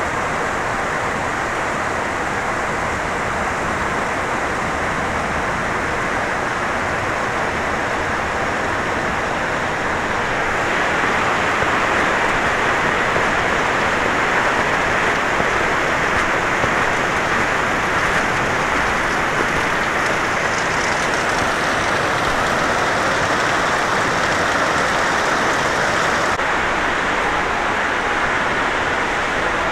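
Steady rush of flowing water, a little louder from about ten seconds in.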